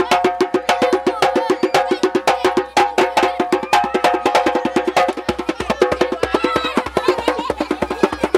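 Upbeat music driven by a fast, even rhythm of sharp woody percussion clicks, about six a second, over sustained pitched notes. A deeper bass pulse joins a little past five seconds in.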